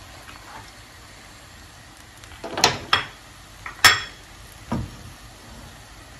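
Kitchenware knocking against a large frying pan while fried eggs are added to rice and stirred in with a spatula: three sharp clinks between about two and a half and four seconds in, the last the loudest, then a duller knock.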